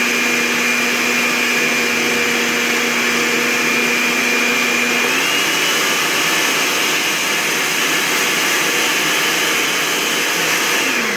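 Countertop blender motor running steadily under load, blending chopped cucumber, ginger, lemon and basil with no added water. Its hum and whine step up slightly in pitch about five seconds in. At the very end the motor is switched off and winds down.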